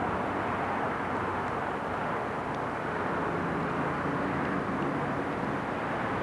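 Steady engine and road noise heard inside a vehicle cabin.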